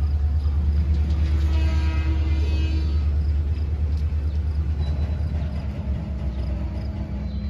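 Freight train gondola cars rolling slowly past on jointed track, a steady low rumble of steel wheels on rail that slowly fades, with a faint high squeal from the running gear about two seconds in.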